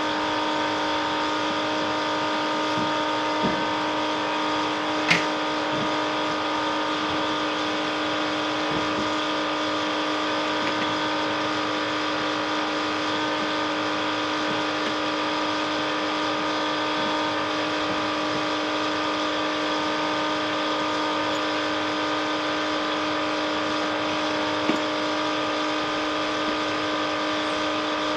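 A small electric motor running steadily with a constant hum. A few brief clicks or knocks, the sharpest about five seconds in.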